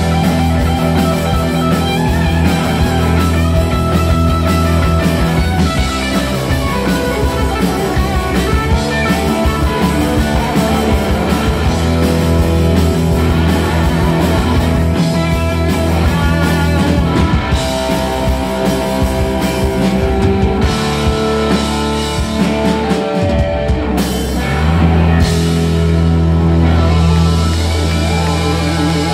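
Live rock band playing an instrumental passage with no singing: a white Telecaster-style electric guitar over bass guitar and a drum kit. There is a short break in the low end about three-quarters of the way through, then sustained low notes.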